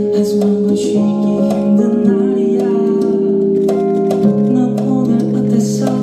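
A man singing a slow pop ballad live into a handheld microphone over instrumental accompaniment, with long held notes.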